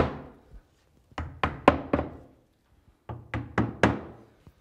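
Hammer tapping wall anchors into drilled holes in a tiled shower wall: one strike at the start, then two quick runs of about four taps each, about two seconds apart.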